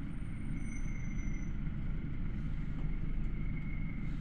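Luidor-225019 minibus (GAZelle Next) idling while standing still, heard from inside the passenger cabin: a steady low rumble with a faint steady high whine.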